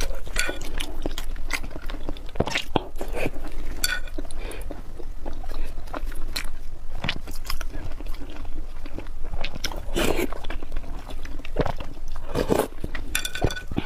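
Close-miked eating: a person biting and chewing food, with wet mouth clicks and smacks coming at irregular intervals.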